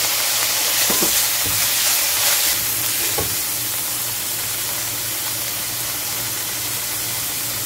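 Garlic, green chilli and basil leaves sizzling in hot oil in a stainless steel wok as they are stir-fried, with a few light knocks of the metal spatula in the first half. The sizzle eases slightly toward the end.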